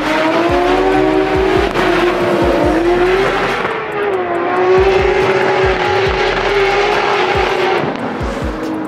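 Two drift cars running hard at high revs in a tandem drift, the engine note wavering up and down as the drivers work the throttle, over tyre squeal.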